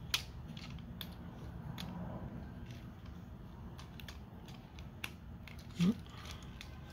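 Plastic parts of a Transformers Sandstorm action figure clicking and creaking as they are handled and pegged together, with a few sharp clicks, one right at the start. A short hum of voice near the end.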